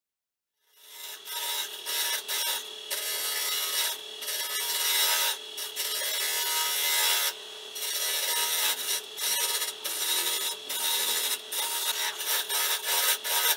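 Turning tool scraping the inside of the neck of an algarrobo wood vase spinning on a lathe. The rough cutting sound starts about a second in and breaks off briefly several times as the tool eases off the wood.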